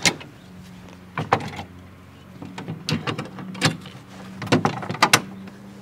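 A handful of sharp metal clicks and knocks, spread out, as a steel bracket is handled against a dump truck's steel tailgate and a nut is fitted to bolt it on. A faint steady hum runs underneath.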